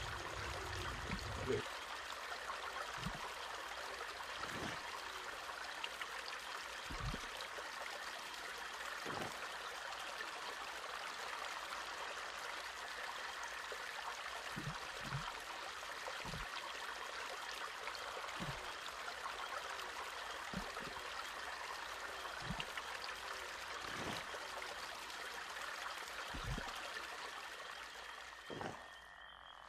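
Steady, even outdoor hiss, with soft low knocks every second or two.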